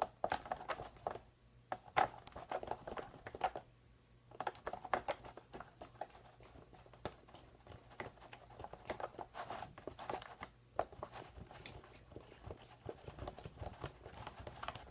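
A spoon stirring Elmer's glue and food dye in a bowl: irregular clicks and scrapes of the spoon against the bowl, with short pauses about a second in and again around four seconds in.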